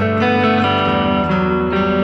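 Background music: a plucked guitar tune with notes changing every fraction of a second.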